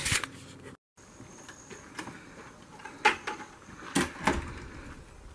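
A few sharp knocks and clicks of flip-flop footsteps on a wooden porch deck. The loudest comes about three seconds in and two more follow close together about a second later, over a faint steady background hiss.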